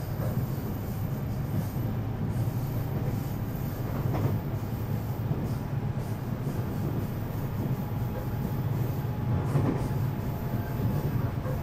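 Running noise heard inside a JR West 521 series electric multiple unit's motor car: a steady low rumble of wheels and running gear, with a faint steady whine and brief louder rattles about four and nine and a half seconds in.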